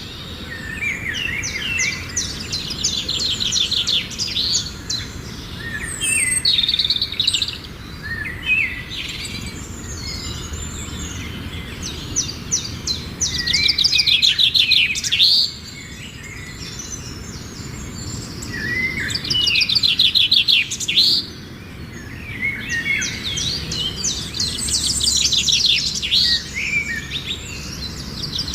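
Birds chirping and singing: bouts of rapid, high trills and short gliding chirps every few seconds, loudest about halfway and two-thirds through, over a steady low background rumble.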